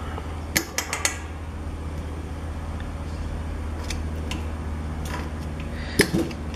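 A flat screwdriver clicking and scraping against a hydraulic floor jack as it pries at the jack's rubber filler cap: a cluster of light metallic clicks about half a second in, a few fainter ones around four seconds and a sharper one near the end, over a steady low hum.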